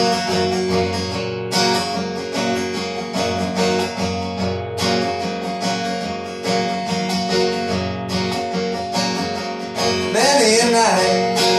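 Acoustic guitar strummed in a steady rhythm in a country-blues instrumental break. Near the end a singing voice with vibrato comes in briefly over the guitar.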